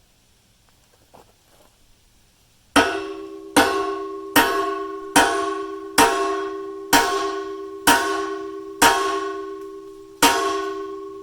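Hammer blows on steel, driving the retaining pin into a new excavator bucket tooth: nine strikes about a second apart starting about three seconds in, each leaving the metal ringing with a clear, bell-like tone that fades slowly after the last blow.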